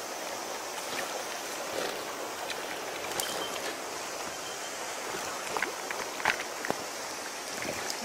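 Mountain stream water running steadily. A few short, sharp sounds come between about five and seven seconds in, the loudest just past six seconds.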